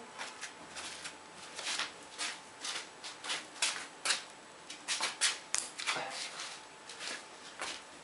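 Irregular light clicks and rustles of hands handling small metal parts: the nut and washer just taken off the motorcycle's front shock absorber.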